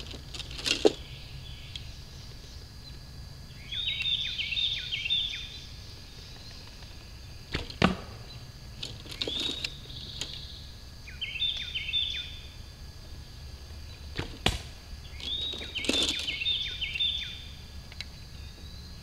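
Bow shots: a sharp snap from the bowstring as each arrow is loosed, three times, with fainter knocks in between. A songbird chirps in quick falling runs several times.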